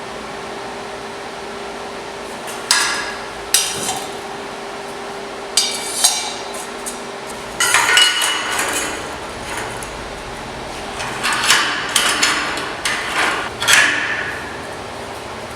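A hammer striking steel parts, with irregular metallic knocks and clanks that each ring briefly. The blows come singly at first, then in quicker clusters about halfway through and again near the end. A faint steady hum runs underneath for the first half.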